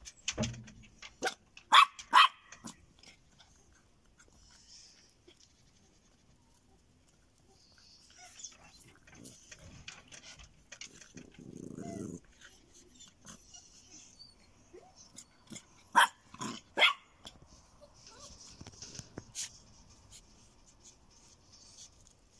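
Tonya Fino spitz dogs at play: a few short, sharp barks near the start, a brief low growl about halfway through, and two more sharp barks a few seconds later.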